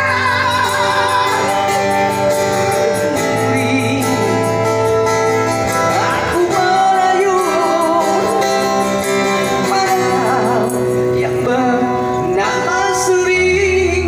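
Busker band playing a Malay ballad live, with a singer holding long, wavering notes over the accompaniment.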